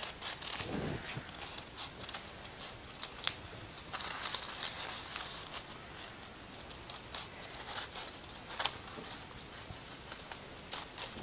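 Newspaper rustling and crinkling as it is handled, with scattered sharp clicks of scissors.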